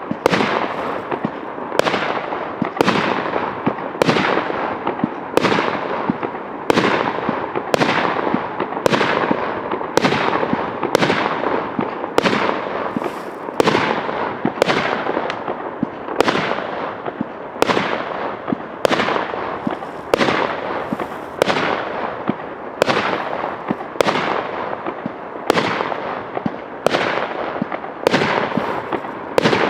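Multi-shot fireworks battery (cake) firing shot after shot at a steady pace of a little over one a second, each sharp bang trailing off in a hissing, crackling decay.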